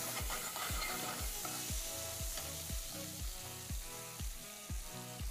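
Steak sizzling in a hot pan, with background music keeping a steady beat of about two thumps a second.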